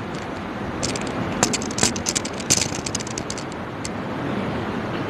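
Steady rushing room noise from running electric wall fans, with rustling and sharp little clicks of people moving and getting to their feet, busiest between one and three seconds in.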